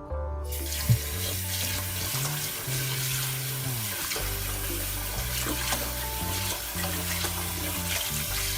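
Water running from a kitchen tap, a steady rush starting about half a second in, as glutinous rice is rinsed to wash off its starch.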